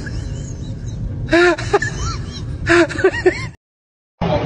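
Several short vocal cries, each rising then falling in pitch, in two quick groups over steady street noise. The sound cuts out completely about three and a half seconds in, then a hissy background comes back.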